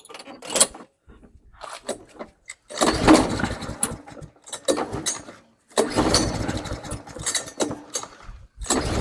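Hot 140cc Powermore overhead-valve mower engine being pull-started, cranking over on several recoil pulls without catching: it will not restart when hot.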